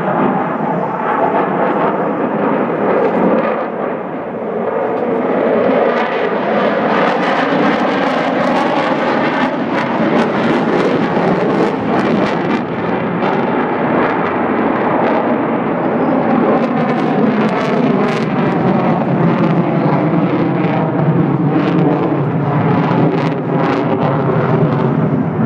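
A Sukhoi fighter jet's engines running loud as it flies a display overhead. The sound swells a few seconds in, shifts in pitch as the jet manoeuvres, and carries a ragged crackle.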